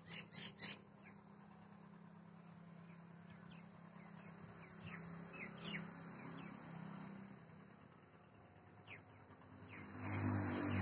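Faint, scattered short chirps of birds over a low steady hum, with a few sharp clicks in the first second and a rushing noise swelling near the end.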